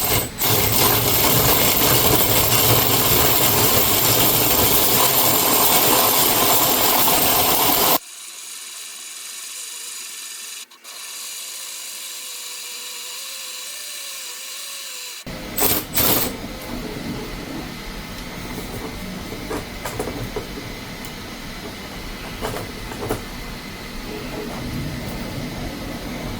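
Drill running steadily as it spins a filament respooler, winding 3D-printer filament from one spool onto another. The sound drops away abruptly about eight seconds in, and after a couple of sharp clicks around fifteen seconds it runs on again more quietly.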